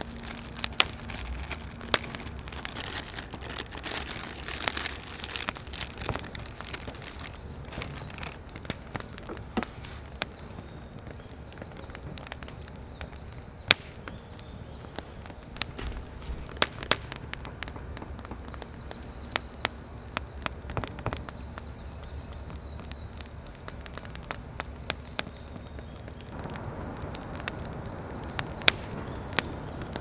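Wood campfire of split logs burning and crackling, with sharp snaps at irregular intervals over a steady hiss.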